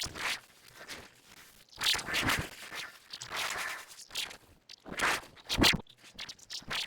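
Synthetic footsteps generated by a RAVE-based variational autoencoder, their timbre passed through a decoder trained on water sounds: a few uneven, crunching, scraping steps, a bit noisy, with a watery, sci-fi character.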